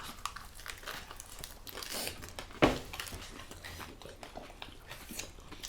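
Close-up eating sounds: chewing and crunching deep-fried crispy pork leg, with small crackles throughout and one sharp crunch about two and a half seconds in.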